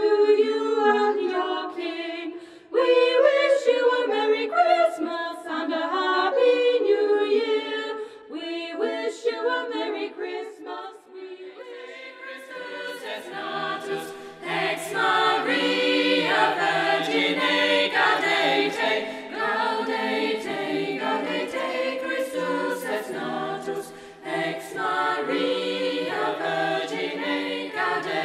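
An unaccompanied choir singing Christmas carols. Around the middle it goes quieter for a moment, then comes back fuller, with lower voices joining.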